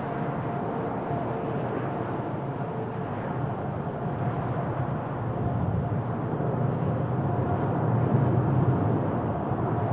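Jet engines of a Boeing 787-10 Dreamliner on landing: a steady roar with a faint whine, slowly growing louder.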